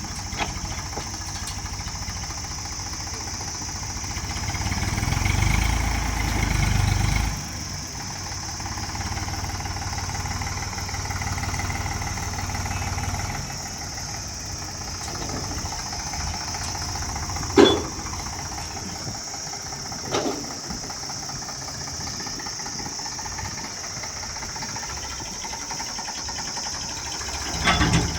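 A heavy vehicle's diesel engine running steadily. It grows louder for a few seconds early on, then settles. Two sharp metallic clanks sound in the second half, a little over two seconds apart.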